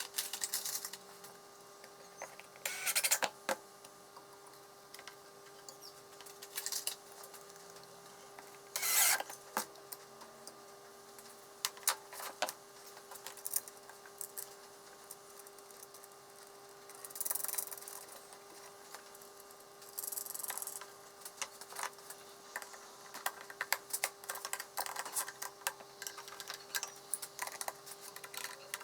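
Hands-on bench work with tools and parts: scattered clicks and knocks, with a few short rasping bursts about 3, 9, 17 and 20 seconds in, over a steady hum.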